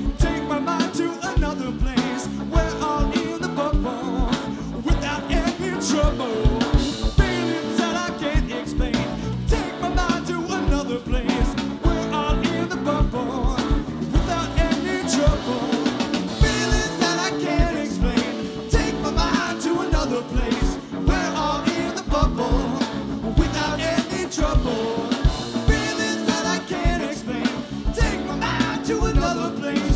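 Live rock band playing: electric guitar, bass, keyboards and a drum kit keeping a steady beat, with a voice singing at times.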